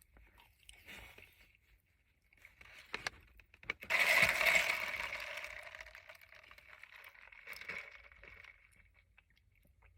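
Close-up eating sounds from a person eating chocolate munchkin donut holes: a few sharp mouth clicks, then a louder, noisy stretch about four seconds in that fades away over several seconds.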